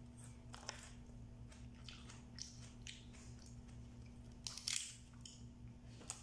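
Boiled blue swimming crab shells and legs cracking and crunching as they are pulled apart by hand, mixed with close-up chewing. Short irregular cracks come throughout, with the loudest cluster about three-quarters of the way through.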